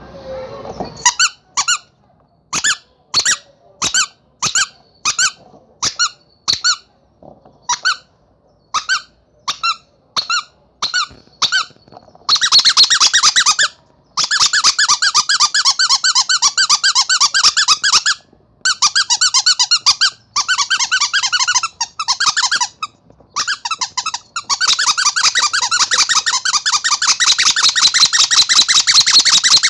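Monkey squeaky toy being squeezed: single high squeaks about once a second, then from about halfway through a fast unbroken run of squeaks, broken by a few short pauses.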